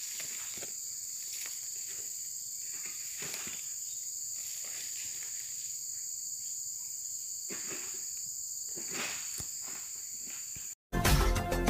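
A steady chorus of insects shrilling at several high pitches, with occasional faint rustles. Near the end the sound drops out briefly and music starts abruptly.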